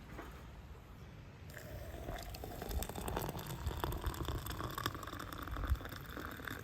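Hot water poured from a kettle into a mug, starting about a second and a half in, the pitch rising steadily as the mug fills.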